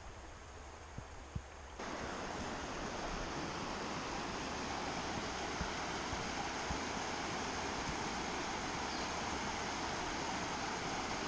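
Shallow river running over a rocky bed of stones: a steady rush of water that comes in suddenly about two seconds in, after a quieter stretch of faint outdoor hiss with a few soft taps.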